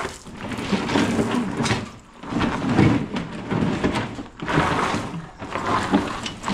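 A heavy wooden cabinet being walked and shoved across a gravel floor: its base scrapes and crunches on the loose gravel in a series of uneven pushes.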